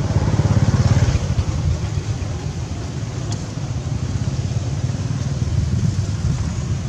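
Low, steady rumble of a motorbike engine running, swelling about a second in as it passes.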